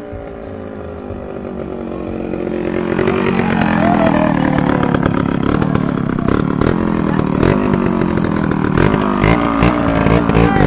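Suzuki dirt bike engine approaching, growing louder over the first few seconds, then running close by with the revs rising and falling.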